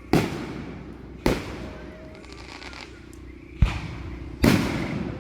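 Aerial fireworks shells bursting: four loud booms at uneven intervals, each trailing off in a rumbling decay, with a faint crackle between the second and third.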